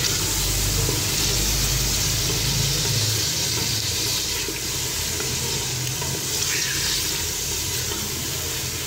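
Beef pieces frying in hot oil in an aluminium pressure cooker, a steady sizzling hiss as they are stirred with a wooden spatula to brown the meat, with a low hum underneath.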